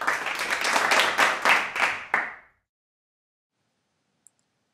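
Applause, a dense patter of many hands with sharp single claps standing out, cutting off suddenly about two and a half seconds in.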